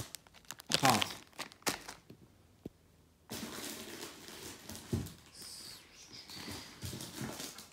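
Plastic cookie packet crinkling as it is squeezed in the hand, then quieter rustling handling noise with a soft knock about five seconds in as it is put down.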